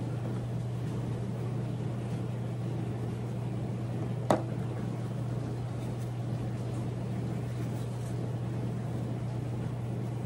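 Steady low mechanical hum, with one sharp clink of a glass canning jar about four seconds in.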